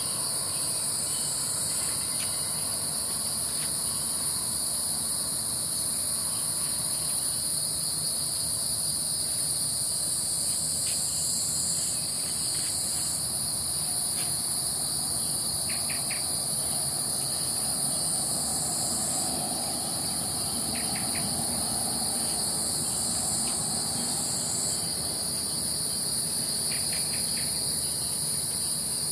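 Steady, high-pitched chorus of insects trilling without a break, with a few faint short chirps now and then.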